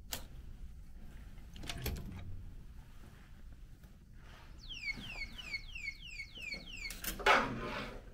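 Hotel room door with a keycard lock being unlatched and pushed open: a click, the handle and latch working, then a run of about eight quick falling electronic chirps, about three a second. A loud thump about seven seconds in.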